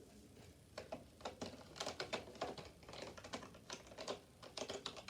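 Faint, irregular light clicks and taps, a few a second, from small plastic toy pieces and their packaging being handled.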